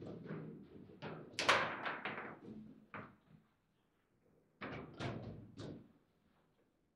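Table football being played: sharp, irregular clacks and knocks as the ball is struck by the plastic men and the rods move. The hits come in two clusters with short quiet gaps between them.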